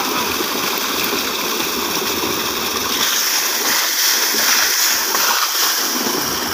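Water gushing steadily out of a large irrigation pipe into a channel, with heavier splashing from about three to five and a half seconds in as a person ducks into the falling stream.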